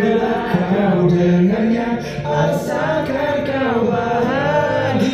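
Live singing into a handheld microphone over music, the voice carried through a sound system.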